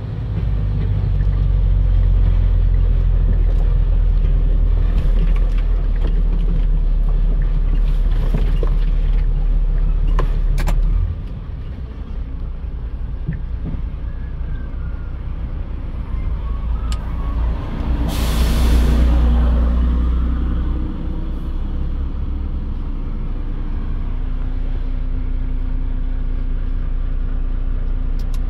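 Heavy trailer truck's diesel engine running hard, with a deep rumble that drops off suddenly about eleven seconds in. A short hiss of air, like an air-brake release, comes about two-thirds of the way through, and then the engine runs on more evenly.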